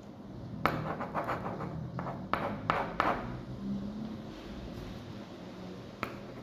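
Pen writing on paper: a run of scratchy strokes with sharp taps where the tip meets the paper, from about a second in to about three seconds, then a single tap near the end.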